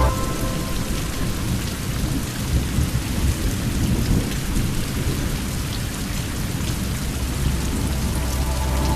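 Steady rain falling, a dense patter of drops, with a low rumble of thunder underneath.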